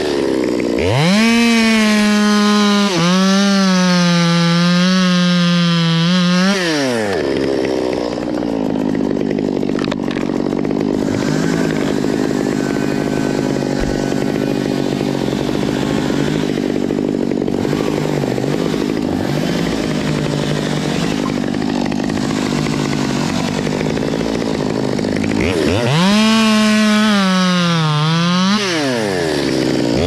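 Stihl top-handle chainsaw at full throttle, cutting through the sycamore stem for about six seconds, then dropping to idle for about twenty seconds. Near the end it revs back up under load into the next cut, wavering and dipping briefly.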